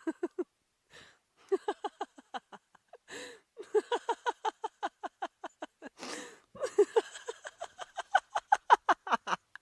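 A person laughing hard in rapid ha-ha-ha pulses, in four runs, each broken by a gasping in-breath.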